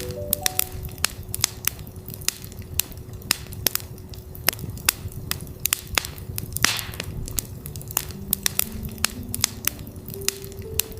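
Campfire crackling with frequent sharp pops and a brief hiss about two-thirds of the way through, over a steady 369 Hz tone. Soft ambient synth notes climb in steps near the start and again from about eight seconds in.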